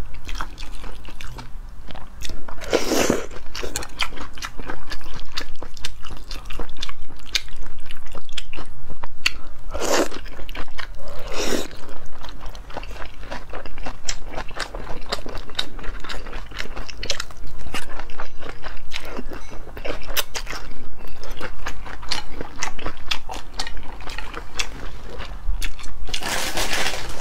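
Close-miked eating: wide wheat noodle sheets with shredded cucumber being slurped up and chewed, with many small wet mouth clicks and crunches. Several louder slurps stand out, the strongest about three seconds in and near the end.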